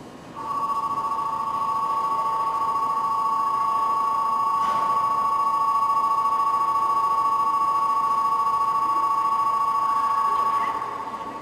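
Platform departure bell ringing steadily for about ten seconds on two close electronic notes, then cutting off: the signal that the train is about to leave.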